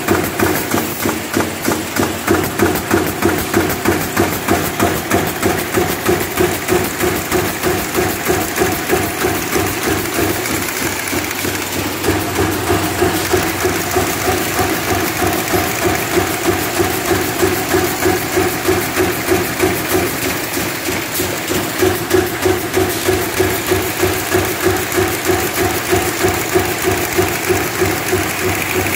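Double production line for aerosol can bottoms running at speed, 400 ends a minute on each line: continuous machinery clatter over a steady hum, with a regular pulsing beat of about two to three strokes a second.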